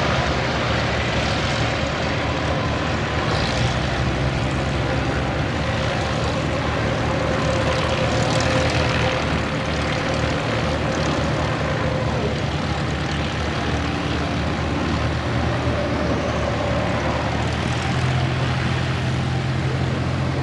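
Propeller-driven aircraft engine noise in flight, a steady drone with small shifts in pitch, from an aerobatic display.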